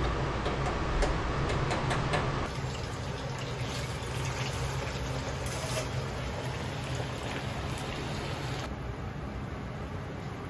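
Diced potatoes bubbling and sizzling gently in olive oil in a frying pan over low heat, with a few light clinks of utensils in the first couple of seconds.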